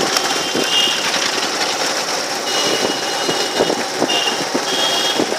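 Vehicle engine running with a steady rattle as it moves slowly through street traffic. Brief high-pitched beeps come several times over the din.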